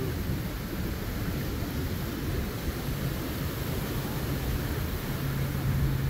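Wind rumbling on the microphone over the wash of ocean surf, a steady, even noise. A low steady hum comes in about five seconds in.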